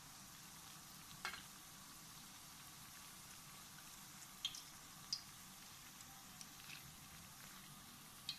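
Churro dough sizzling faintly and steadily in hot frying oil in a pan. A few light clicks, likely a spatula touching the pan or the churros, come about a second in, twice around the middle and once near the end.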